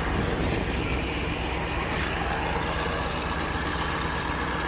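An engine running steadily with a fast low throb, and a constant high-pitched whine above it.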